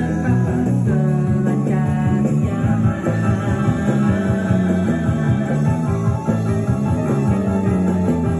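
A rock song with guitar and bass, played back from a cassette tape on a Sony TC-K77R stereo cassette deck.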